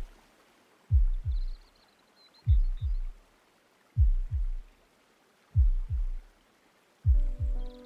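Deep, slow heartbeat sound effect: a double thud repeating about every second and a half, five times. Sustained music tones come in near the end.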